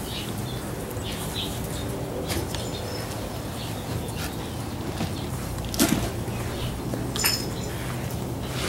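Labrador retriever puppies playing on a hard floor: small high squeaks and chirps with scattered clicks and knocks, the loudest knock about six seconds in, over a steady low hum.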